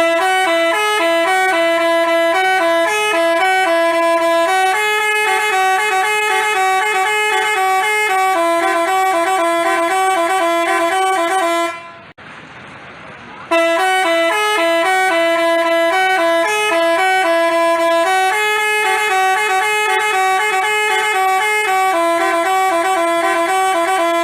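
Basuri telolet bus horn playing a multi-note tune. The melody runs about twelve seconds, stops briefly, then plays again from the top.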